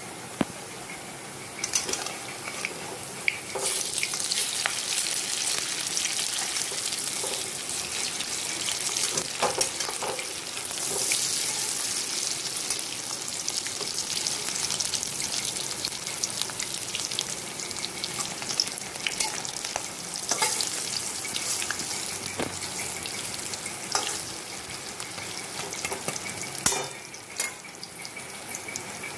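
Masoor dal boras (red lentil fritters) deep-frying in hot oil in a wok: a steady sizzle with frequent small crackles and sharp pops scattered through it.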